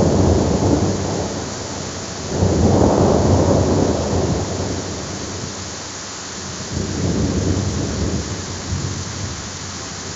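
AI-generated thunderstorm sound effect made from the prompt "thunder sound". A steady downpour of rain runs throughout, with rolls of thunder swelling and fading three times: at the start, about two and a half seconds in, and around seven seconds in.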